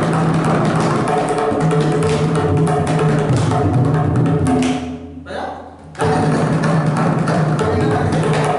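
Tabla played in fast, dense strokes, the tuned right-hand drum ringing over the deep left-hand drum: a tisra jati qaida in teental. The playing breaks off for about a second near the middle, then starts again abruptly.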